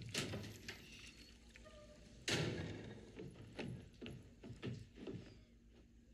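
Footsteps on wooden floorboards, with one loud bang about two seconds in.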